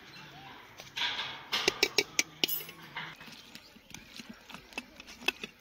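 Steel serving spoon clinking and scraping against steel plates, with a quick run of sharp clinks about a second and a half in and a few lighter taps after.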